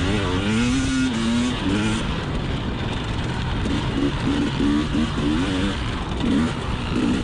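2020 KTM 300xc TPI two-stroke dirt bike engine running under riding, its pitch rising and falling with the throttle.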